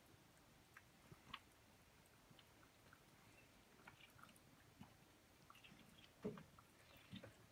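Two cats eating from bowls: faint, irregular chewing and small clicks, with a soft thump about six seconds in.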